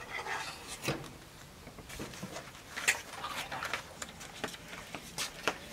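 Scattered light clicks and clinks of metal cookware being handled, with a brief scrape at the start.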